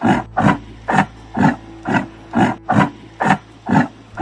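A yak calling over and over: short calls repeated about twice a second in an even rhythm, over a faint low hum.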